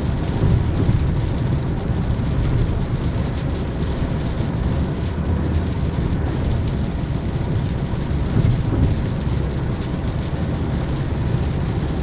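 Steady low rumble of a car driving on a rain-wet highway, heard from inside the cabin, with a couple of brief swells.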